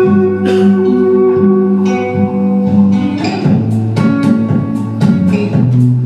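Music led by plucked guitar over held low notes, the plucking growing busier about halfway through.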